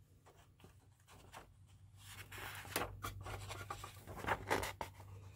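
Paper pages of a model kit's instruction booklet rustling and crinkling as they are handled and turned, louder from about two seconds in, over a low steady hum.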